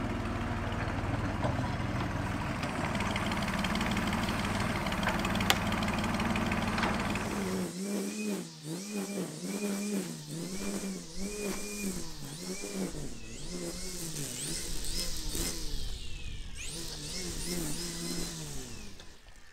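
An engine running steadily. About eight seconds in it cuts to a different pitched sound that rises and falls in pitch over and over, under a second per swell, and ends with a falling glide.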